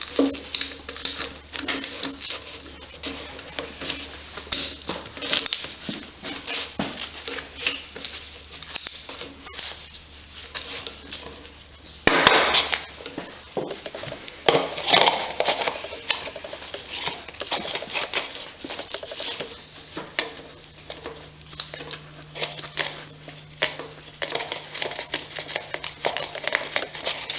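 Irregular clicking, scraping and metal clatter of tools and parts being handled while working on an engine, with a louder cluster of clatter about twelve seconds in.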